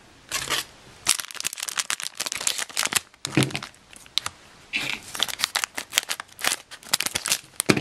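Plastic foil blind-bag packet crinkling and crackling in the hands, with dense irregular crackles, as it is handled and torn open.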